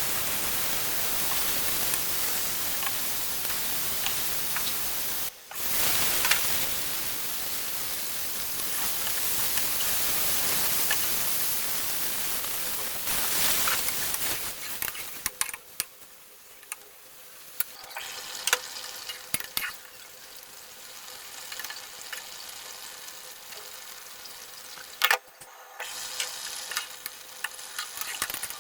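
Cauliflower frying in a pan: a steady sizzle with stirring. About halfway through the sizzle drops much quieter, leaving scattered clicks and clinks of a utensil against the pan.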